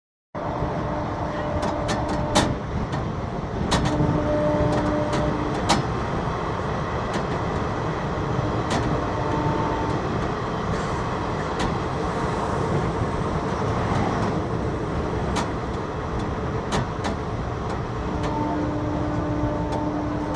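WAP7 electric locomotive's two-tone air horn sounding four long blasts of about two seconds each, over the steady rumble of a train running through a station at speed. Scattered sharp clicks ring out over the rumble.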